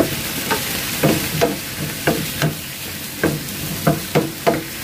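Squid and bell peppers sizzling in hot oil in a frying pan, with a wooden spatula knocking and scraping against the pan about twice a second as they are stir-fried.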